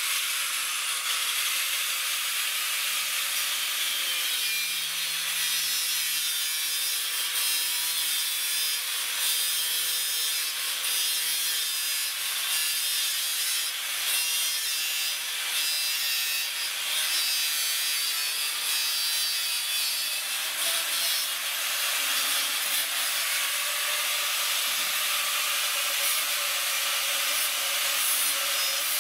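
Angle grinder cutting through a grey plastic sewer pipe: a steady, unbroken grinding hiss.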